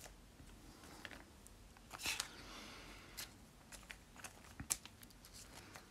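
Faint handling of a trading card: scattered small clicks and a soft swish as the card is picked up off the table.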